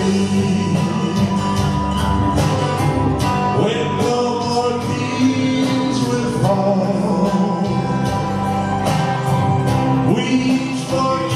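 A man singing into a handheld microphone over country-style accompaniment with guitar.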